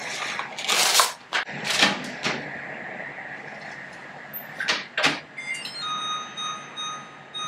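Plastic cling wrap being pulled off its roll, torn and crinkled over a glass bowl. About five seconds in come two clicks from the microwave door, then short keypad beeps and a steady high whine as the microwave starts running to steam potatoes.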